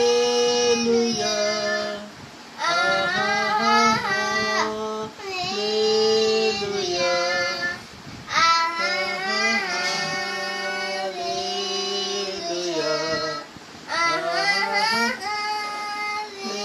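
A boy singing a Hindi Christian devotional song solo, with no instrument heard: long held notes that bend in pitch, phrase by phrase, with short breaths between phrases.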